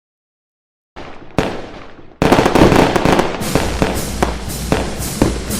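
Fireworks going off. Sound starts about a second in, a sharp bang comes soon after, and from about two seconds in there is a dense crackling barrage with repeated loud bangs.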